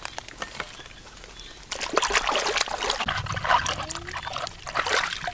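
Hands scrubbing apples in shallow river water, splashing and sloshing, starting about two seconds in.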